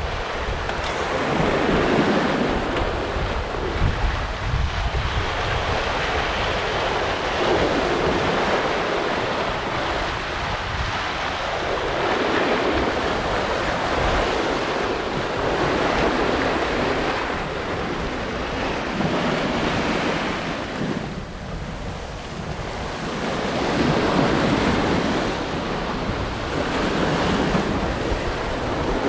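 Sea rushing along the hull of a Hallberg-Rassy 54 sailing yacht under way, swelling and easing every few seconds, with wind buffeting the microphone as a low rumble.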